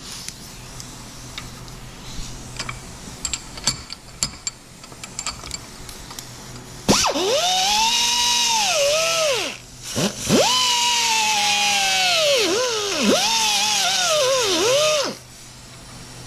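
A few light handling clicks, then a high-speed cut-off tool with stacked cut-off wheels grinding a curve into a stainless steel part. It gives a high whine that sags in pitch each time the wheels bite in. It stops briefly about ten seconds in, then runs again for about five seconds before cutting off.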